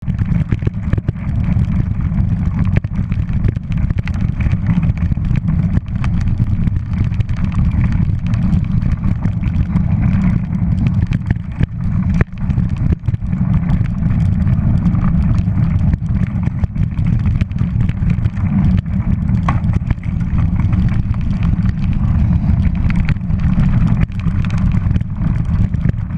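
Mountain bike running fast down a rocky forest trail: wind rumbles steadily on the GoPro microphone while tyres and frame rattle and clatter over stones, with frequent short knocks throughout.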